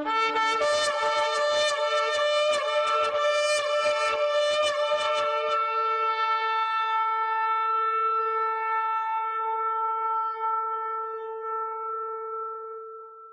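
Shofar blown in one long blast. It starts on a brief lower note and jumps to a higher one, which wavers in quick pulses for about five seconds. It then settles into a single steady held note that fades out near the end.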